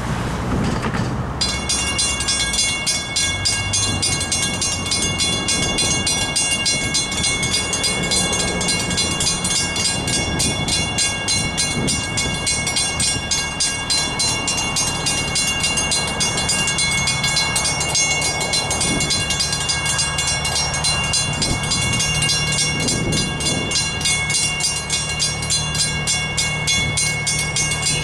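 Mechanical railroad crossing bell starting up about a second in and then ringing steadily in rapid, even strokes: the crossing signals have activated to warn of an approaching train.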